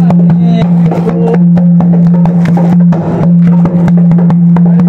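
Dholak hand drum struck in a quick, irregular rhythm of sharp strokes over a loud steady low hum, with a few short snatches of voice.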